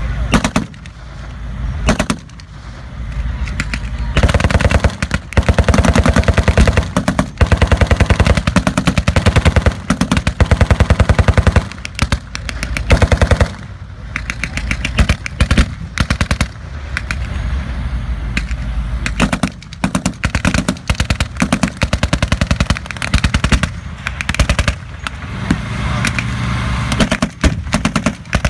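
Machine guns firing blanks in long rapid bursts with brief pauses, over the low running of tracked armoured vehicle engines.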